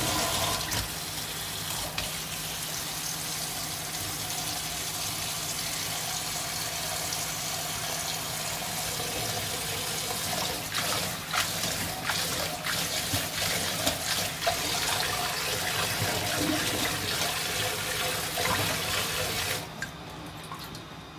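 Kitchen tap running steadily into a stainless steel colander in a sink, the water spattering over leafy greens as they are rinsed. A few short clicks and knocks come in the second half. The water stops shortly before the end.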